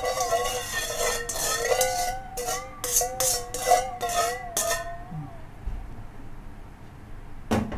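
A metal spoon stirs and scrapes around a stainless steel mixing bowl, making the bowl ring with a wavering tone, as a fish-sauce marinade is mixed until the salt and sugar dissolve. The stirring stops about five seconds in, and a single clink comes near the end.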